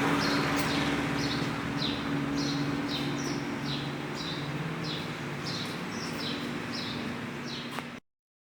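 A small bird chirping over and over, short falling chirps about two a second, over a steady low hum, the whole fading out and cutting off near the end.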